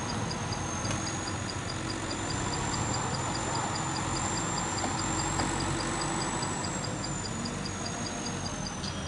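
Diesel engines running steadily, from the mini excavator and the log truck at work. Over them sit a thin high whine that slowly rises and falls in pitch and a fast, even high ticking, about five a second.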